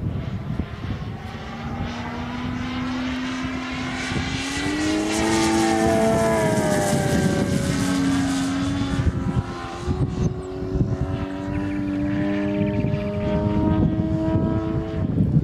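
DLE 222 four-cylinder two-stroke gas engine on canister mufflers, driving the propeller of a 42% scale Dalton Extra 300 RC aerobatic plane in flight. Its note rises in pitch a few seconds in, falls back, then holds steady and climbs again near the end, over a low wind rumble on the microphone.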